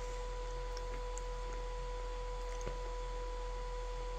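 A steady electrical whine in two even tones, one pitched an octave above the other, over a low mains-type hum, unchanging throughout.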